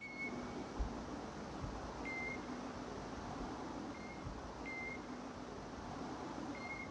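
Steady hiss of falling water, with a few short high chirps about two seconds apart.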